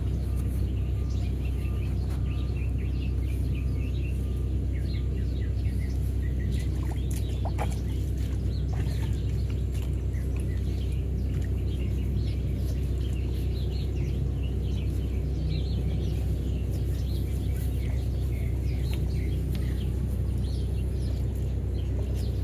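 Sewer hydro-jetter's engine and pump running as a steady low drone while it blasts high-pressure water into a backed-up sewer main line to clear the clog. Birds chirp over it.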